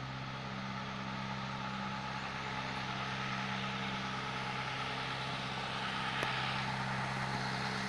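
Steady low motor hum with an even hiss over it, unchanging throughout.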